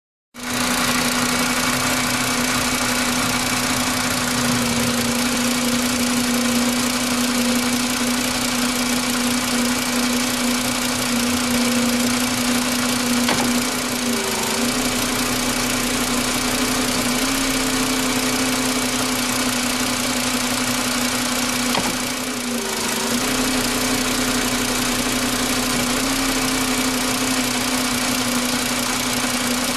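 2013 Volkswagen Golf idling steadily. About halfway through and again about three-quarters through comes a sharp pop, each followed by a brief dip in the engine note: the pop the owner reports when shifting from park into reverse.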